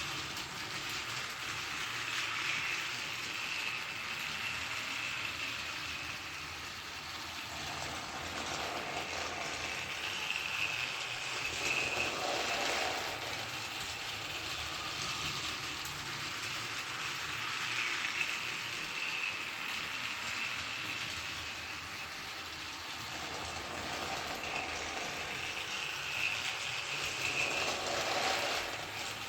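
Battery-powered motorized toy Thomas engine running on plastic track, its small geared motor whirring and its wheels clattering. The sound grows louder about every eight seconds as the train comes round.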